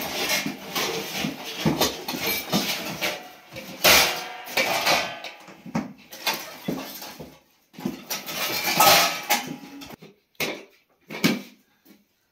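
Pots and cooking utensils clattering and scraping in irregular knocks, thinning out to a few scattered clicks near the end.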